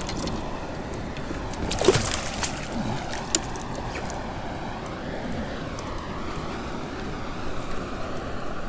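Water sloshing and splashing against a kayak, with a louder splash about two seconds in and a sharp click a little after three seconds.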